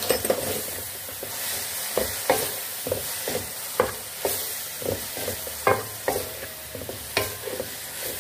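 Minced meat with tomatoes and spices sizzling in hot oil in a metal pan while a spatula stirs it, scraping the pan about twice a second.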